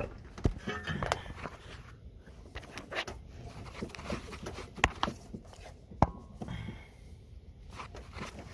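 Scattered metal clicks and knocks from hands and tools working a half shaft into the transmission, with a few sharp knocks standing out: one about half a second in, one near five seconds and one about six seconds in.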